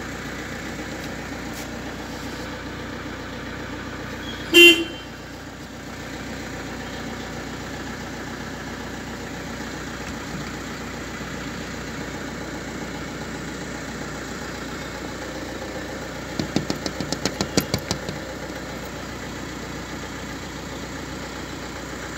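A car engine idling steadily. About four and a half seconds in there is a single short car-horn toot, and a quick run of about ten clicks comes near the end.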